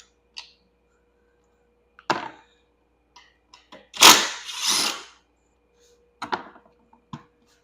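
Short, noisy bursts of clattering and scraping as golf cart seat parts are pried and popped loose, with small clicks in between. The loudest is a pair of bursts about four seconds in.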